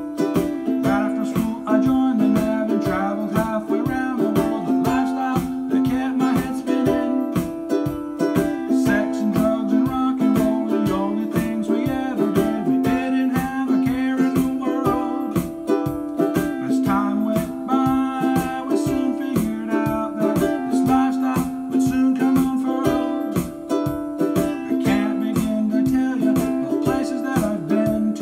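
A ukulele strummed in a steady rhythm of chords, with a man singing along.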